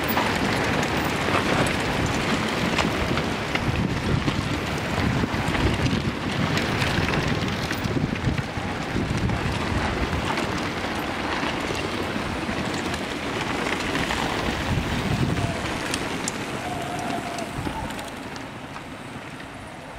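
A pack of mountain bikes rolling past over a loose dirt and gravel track, with tyre noise and wind buffeting the microphone. The noise thins out near the end as the riders move away.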